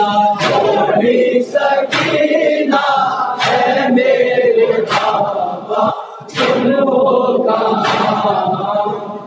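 Men's voices chanting an Urdu noha lament together through a microphone, with about eight sharp slaps at uneven intervals of roughly a second, typical of matam chest-beating keeping time with the recitation.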